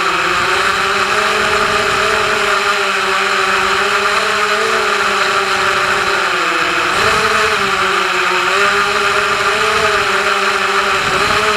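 FPV quadcopter's electric motors and propellers whining in flight, the pitch wavering and dipping briefly as the throttle changes, over a steady propeller hiss.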